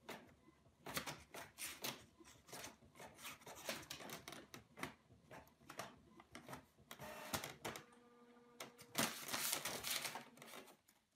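All-in-one inkjet printer printing: a run of faint clicks and clacks from its paper feed and print head, with a brief steady motor tone about eight seconds in and a short whirring rush about nine seconds in.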